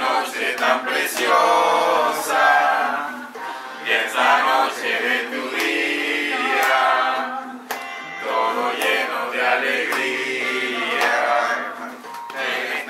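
A group of people singing a birthday song together, many voices in unison without accompaniment.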